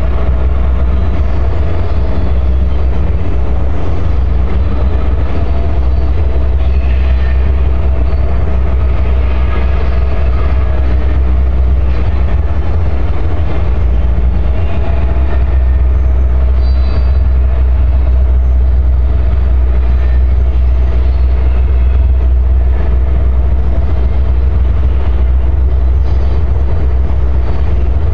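Slow freight train led by two EMD GP38 diesel locomotives creeping across a steel truss bridge, its rolling cars giving a steady rumble. A loud, steady low buffeting of wind on the phone's microphone runs under it.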